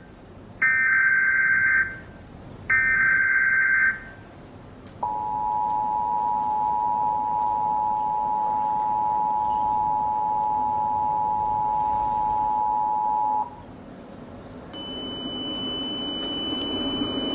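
Emergency Alert System tones: two raspy bursts of SAME header data tones about a second apart, then the EAS attention signal, a steady two-tone beep of about 853 and 960 Hz held for about eight seconds before it cuts off. Near the end a fainter steady high tone drone comes in.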